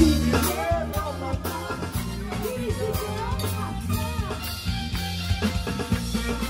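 Live band playing: a drum kit keeping a steady beat with snare and cymbal strokes over a low bass line, with a voice singing above.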